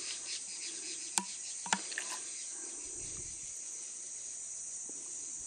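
Steady high-pitched chirring of insects, with two short clicks a little over a second in and a soft low thud around three seconds.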